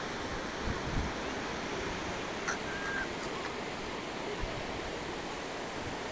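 Steady wash of ocean surf breaking on a sandy beach below, with a few brief low thumps about a second in.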